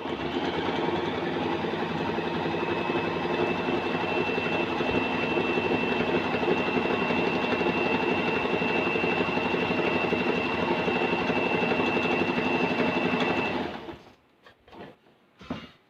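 Usha Allure electric sewing machine running steadily, sewing a dense short zigzag darning stitch, with a thin high whine over most of the run. It stops about 14 seconds in, followed by a couple of faint clicks.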